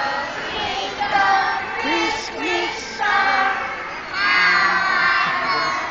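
A group of young children singing together on stage, their high voices coming in phrases and loudest in the second half.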